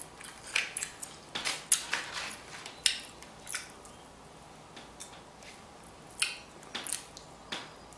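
Baked king crab legs being cracked and broken open by hand: a run of sharp, irregular shell cracks and clicks, busier in the first half and sparser after.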